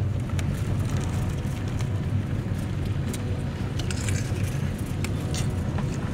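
Steady engine and road rumble of a vehicle, heard from inside the cabin, with a few light clicks and rattles.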